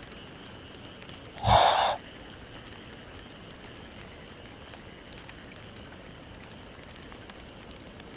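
A sleeping Maltese dog makes one short, loud vocal sound about a second and a half in, over a steady background hiss.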